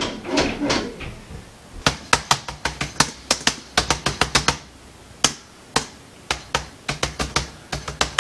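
Sharp, irregular clicking, several clicks a second with short pauses, starting about two seconds in.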